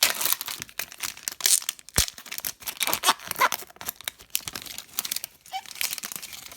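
Hockey card packaging being torn open and crinkled by hand, the wrapping of a blaster box and its card packs, with dense crackling and a sharp click about two seconds in.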